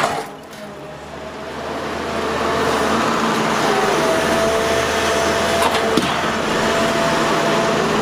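Doosan DX380LC tracked excavator's diesel engine running while it works a grapple among large rocks. The noise swells over the first couple of seconds and then holds steady, with a faint steady whine.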